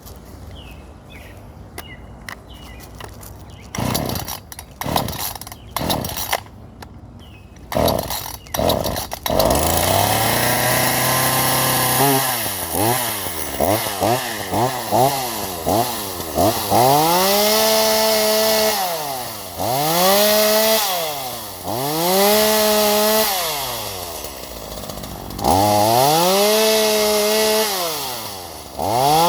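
Two-stroke chainsaw pull-started: several rope pulls, then the engine catches a little under ten seconds in and runs up. It is then revved again and again, rising and falling every second or two, and held at high revs in longer stretches as it cuts into a maple limb, the pitch sagging and recovering under the load.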